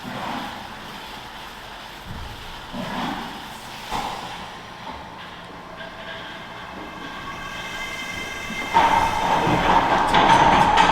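Milking parlour machinery running with a steady mechanical noise and a few knocks. About nine seconds in, a much louder whining hiss starts.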